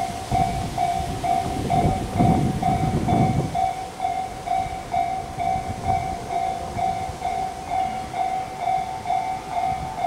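Japanese railway level-crossing warning bell ringing in a steady fast beat, about two strokes a second. Under it an electric commuter train rumbles over the crossing, its noise dying away about three and a half seconds in.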